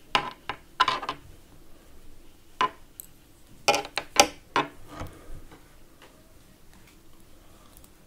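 Thin metal double-pointed knitting needles clicking against each other while a row of sock-heel stitches is purled, in two quick irregular clusters with a single click between them.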